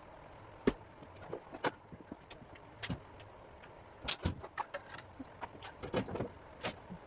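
Scattered, irregular sharp clicks and knocks of metal parts and tools being handled during floor-pan work on a vehicle body, with a small cluster of them about four seconds in.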